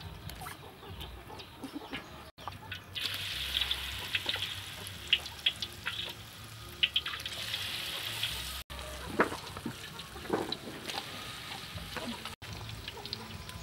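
A metal ladle scooping beef meatballs out of water in a steel bowl, with clicks of metal on metal and watery sloshing; partway through, a steady sizzle of meatballs frying in hot oil in a wok, before the ladle-and-bowl sounds return near the end.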